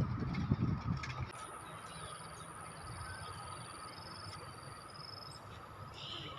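Outdoor ambience of insects and birds: a steady high-pitched insect drone begins about a second in, with short repeated chirps over it. A low rumble fills the first second.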